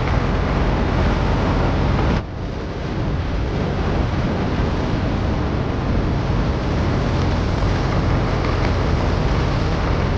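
Tractor engine running steadily under heavy wind noise on the microphone, with a sudden change in the sound about two seconds in.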